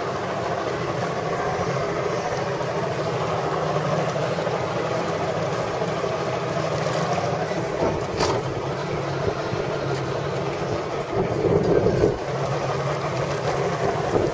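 Wind on the microphone and water sloshing at the side of a boat, over a steady low hum, with one brief knock about eight seconds in.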